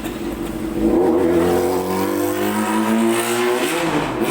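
A motor vehicle's engine revving up about a second in, its pitch climbing steadily and then dropping away near the end.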